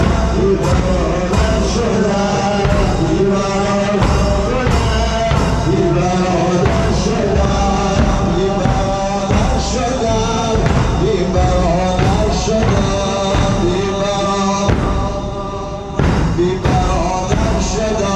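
Muharram mourning music: large bass drums and cymbals beating a steady rhythm of about one and a half strokes a second under a male voice chanting a lament. The beat drops off briefly near the end, then comes back in.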